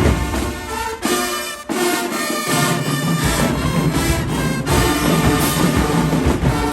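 Marching band playing, led by brass. The bass drops away briefly and comes back in strongly about two and a half seconds in.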